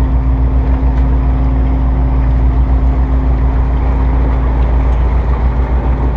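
Boat engines idling alongside: a steady, loud low drone with even hum, one higher hum in it dropping away about five seconds in.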